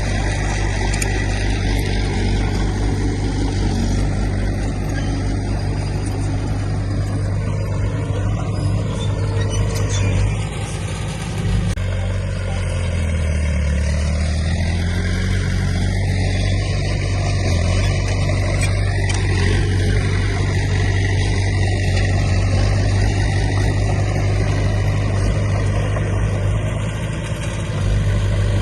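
Heavy diesel construction machinery running steadily under work, with a deep engine drone whose pitch dips briefly about halfway through before recovering.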